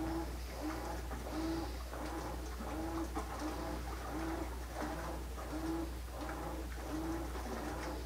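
Whirlpool Smart Load top-loading washer agitating in its wash cycle. The motor hums in short, even strokes, about one and a half a second, as the agitator turns back and forth through the water and clothes.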